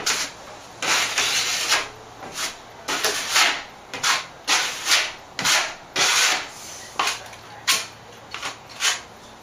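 Steel plastering trowel scraping across a plaster patch on a ceiling in a dozen or so quick strokes, about one a second, smoothing a coat of plaster over a filled downlight hole.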